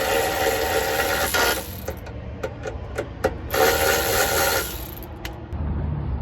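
A power tool runs in two bursts, about a second and a half then about a second, with a few sharp clicks between them, as it works the rusty nuts of an old car exhaust loose.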